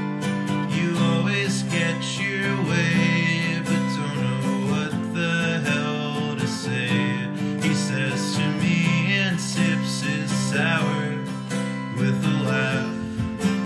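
Acoustic guitar strummed steadily in a live indie folk song.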